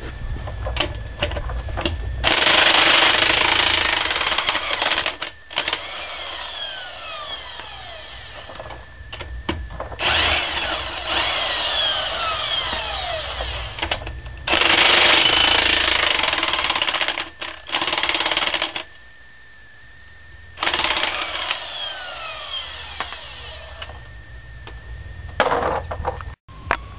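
A hammering power tool running in repeated bursts of about three to four seconds, working on a ball joint; some bursts carry falling squeals.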